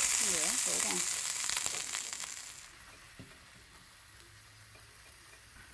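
Sodium acetate solution (vinegar and baking soda) sizzling and bubbling in a very hot glass skillet as it boils down toward crystals. The sizzle dies away about three seconds in.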